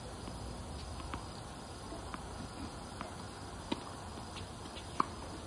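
Tennis ball bounced on a hard court before a serve: a short sharp tap about once a second, the last one loudest.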